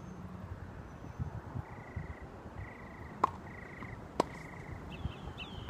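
Two sharp knocks about a second apart: tennis ball impacts on a hard court. They sound over an open-air hiss, and a faint buzzing call repeats four times.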